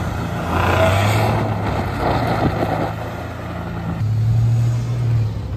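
Older Toyota Tacoma pickup's engine running under throttle as it spins doughnuts in snow, its tires churning through the snow. The engine note rises about four seconds in.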